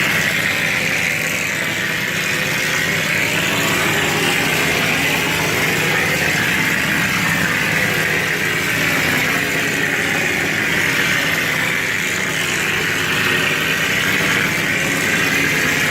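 Cement-plaster spraying machine running steadily: a continuous hiss over a low hum.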